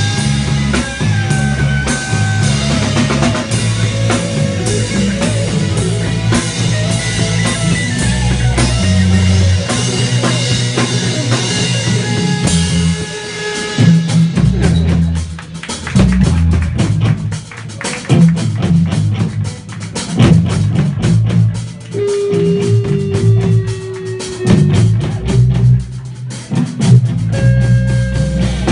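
Hard rock band playing live: drum kit, electric guitar and bass. From about halfway the drumming turns choppy, with stop-start hits and short gaps, under a few held guitar notes.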